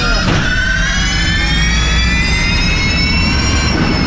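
Electric race car's drive motors whining, rising steadily in pitch as the car accelerates and then dropping away near the end as it slows, over tyre and road rumble. A single sharp knock sounds about a third of a second in.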